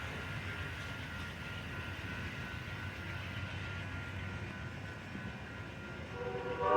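Amtrak passenger train rolling with a steady low rumble. Near the end, the locomotive's multi-note horn starts to blow and quickly grows loud.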